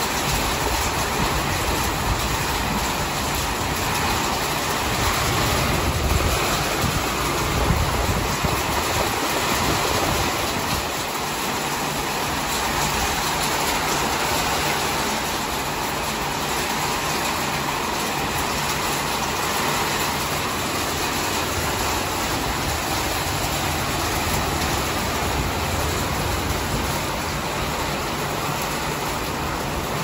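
Small hail and heavy rain pelting down in a steady, dense roar, with gusting wind rumbling low and a little stronger in the first ten seconds.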